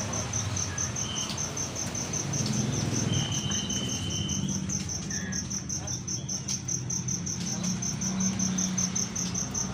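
Steady, evenly pulsed high insect chirping, cricket-like, with a few short thin bird whistles, one held for over a second in the middle, over a low rumble.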